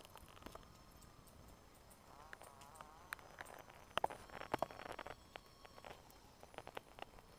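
Faint forest ambience with a wavering insect buzz about two seconds in, and scattered light clicks and taps.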